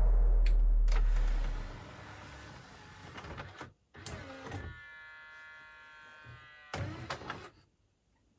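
Small electric motor of a LaserDisc player's loading mechanism running, with clicks and a steady whine for about two seconds in the middle, then stopping. A loud low hum fades out in the first two seconds.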